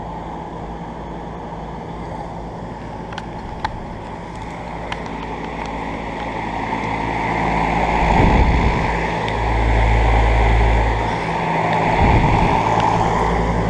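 Carrier central air conditioner condenser units running: a steady compressor hum under fan noise, growing louder about halfway through. Wind buffets the microphone twice near the end.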